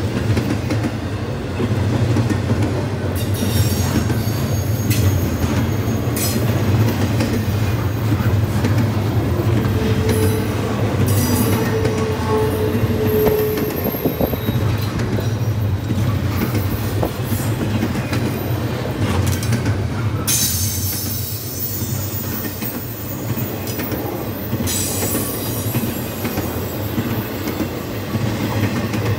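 Double-stack intermodal freight train's well cars rolling past close by: a steady low rumble of steel wheels on the rails. High-pitched wheel squeal comes and goes, strongest in the last third.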